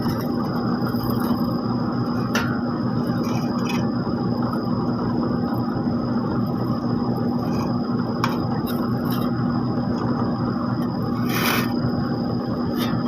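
Heavy road-paving machinery's diesel engine running steadily with a constant low hum, with a few short clicks and scrapes on top.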